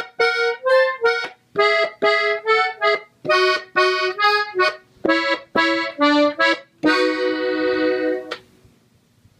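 Gabbanelli button accordion tuned in E, playing a slow ornamental run of short, separated notes worked with bellows shakes (fuelleo). It ends on a chord held for about a second and a half, then stops.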